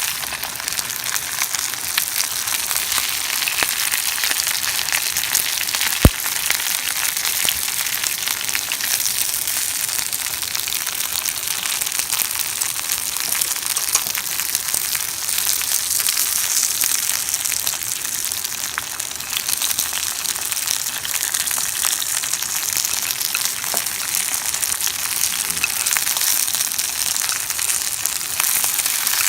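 Sardines frying in oil in a pan, a steady sizzle dotted with small crackles and pops. About six seconds in there is one sharp click.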